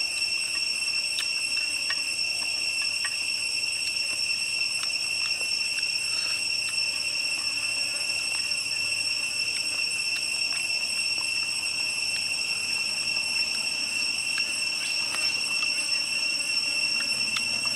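Insects trilling in a steady, high-pitched chorus, with scattered light clicks of chopsticks picking food from a metal pan.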